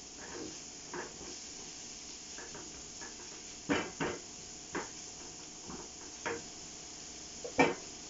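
Kitchen utensils knocking against cookware: about six scattered short clinks, the loudest near the end, over a steady hiss.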